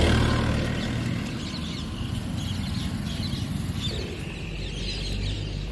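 Outdoor background noise: a low, steady engine hum, strongest at the start and easing after about a second, with faint bird chirps.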